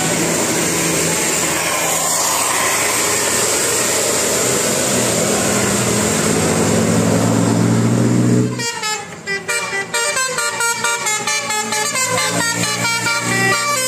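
Bus engine and road noise, then, about eight and a half seconds in, a telolet musical bus horn starts playing a fast tune of short notes that jump in pitch several times a second.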